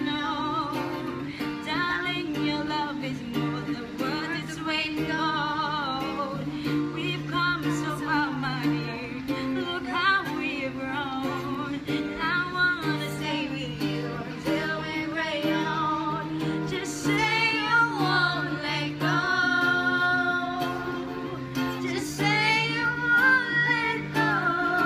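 A woman singing a love song to acoustic guitar accompaniment, her voice wavering on the long held notes.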